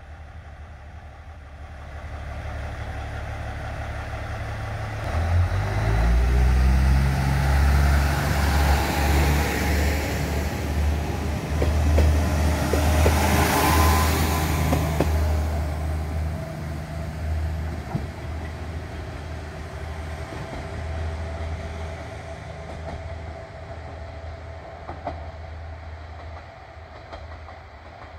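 KiHa 110 diesel railcar pulling out: its diesel engine idles, then throttles up about five seconds in. The car passes close by with a few clicks from the wheels and is loudest in the middle, then the engine sound fades as it draws away.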